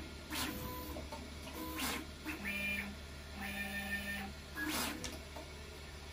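Large toolchanger 3D printer running a fast print: its stepper motors whine in steady pitched tones that jump to a new pitch with each move. About three short rising-and-falling sweeps come from quick travel moves, over a steady low hum.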